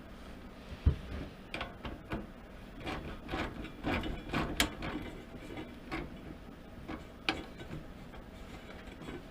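Hands working on diesel heater hose fittings and clamps: a dull thump about a second in, then scattered clicks, taps and rattles of small hard parts, busiest in the middle and tapering off.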